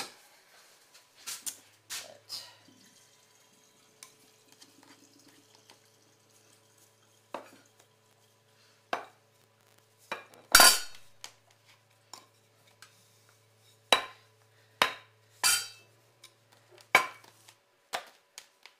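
Kitchen clatter: about a dozen separate sharp knocks of utensils against a wooden work surface while dough is rolled out, the loudest about ten and a half seconds in.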